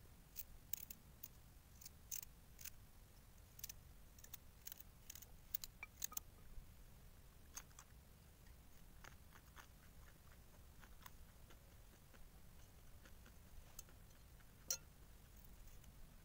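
Small knife cutting raw carrots held in the hand: a quick run of crisp clicks for the first several seconds, then sparser clicks, with one louder click near the end.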